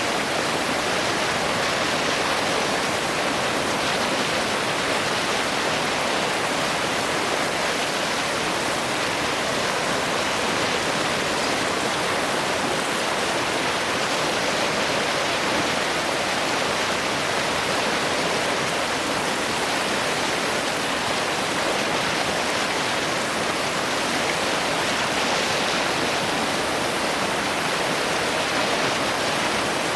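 Heavy water of the River Nile rushing steadily over a waterfall and rapids: an even, unbroken roar.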